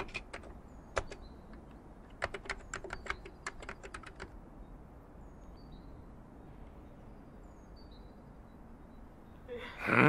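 Computer keyboard typing: a few keystrokes about a second in, then a quick run of keystrokes from about two to four seconds in, followed by faint room noise. Near the end a short, loud sound rises in pitch.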